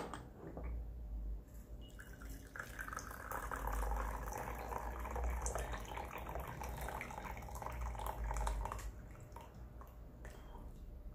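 Brewed Baozhong oolong being poured out of two porcelain tasting cups into two porcelain bowls at once, a steady trickling stream starting a couple of seconds in and lasting about six seconds, as the one-minute steep is drained off the leaves.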